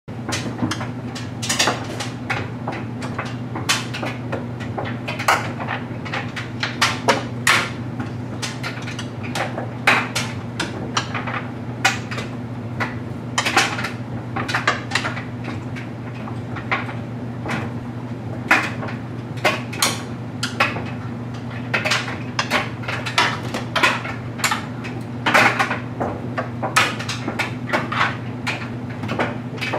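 LG Mega Capacity clothes dryer running with a load of stuffed animals tumbling in the drum: a steady low hum, with irregular knocks and clacks as the load falls.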